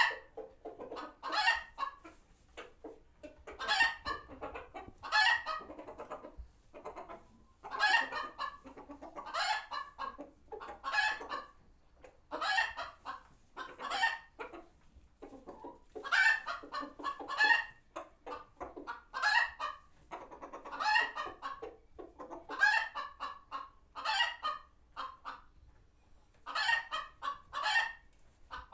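A flock of chickens giving agitated, overlapping alarm clucks in bursts every second or two, their reaction to a hawk passing overhead.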